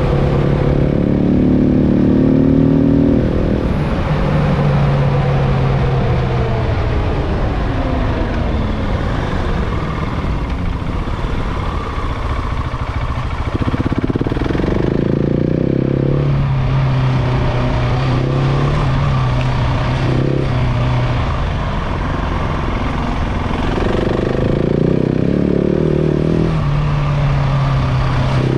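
KTM 690 Enduro's single-cylinder engine under way during its running-in, the pitch rising and falling as the rider accelerates, shifts and rolls off. About four seconds in it falls away in a long glide as the bike slows, then it picks up and holds steady at several points.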